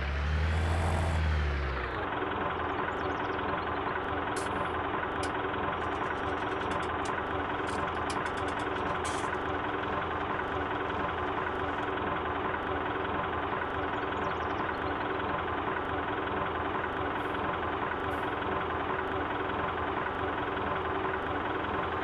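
Diesel tractor engine idling steadily, a sound effect laid over the footage. The first two seconds carry a louder swooping whoosh.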